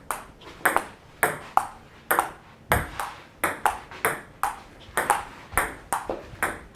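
Ping-pong rally: the ball clicking sharply off the paddles and the table in a quick, even back-and-forth, often in pairs of bounce and hit, about two to three clicks a second.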